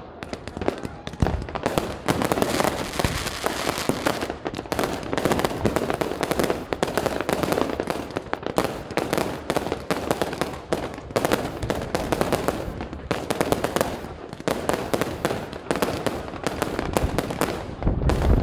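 Aerial fireworks bursting: a dense, continuous run of rapid bangs and crackling with no pause.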